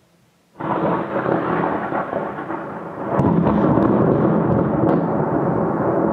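A close thunderclap from a nearby lightning strike: it breaks suddenly and loudly about half a second in, then rumbles on, swelling again with sharp crackles around three seconds in.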